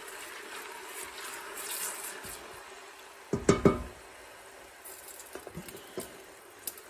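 Chopped onions sizzling in hot olive oil in a stainless steel pot, stirred with a wooden spoon; the sizzle fades a little after a few seconds. A few sharp knocks about three and a half seconds in as the wooden spoon strikes the pot, then a few light clicks.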